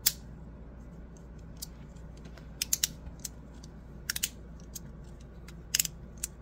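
Small sharp clicks of a double-sided magnetic fidget slider being handled: one loud click at the start, then scattered single clicks and quick clusters of two or three.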